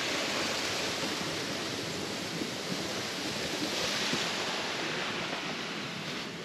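Water spilling over a small stone dam on a creek: a steady, even noise of falling water, easing a little near the end.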